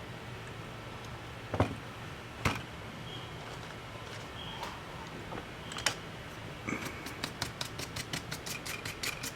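A few sharp clicks of small tools and parts being handled on the opened laptop. From about two-thirds through, a rapid, even ticking with a faint high whine starts.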